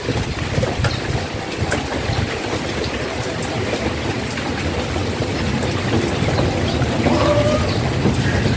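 Light rain falling steadily, with a low rumble underneath and scattered faint ticks.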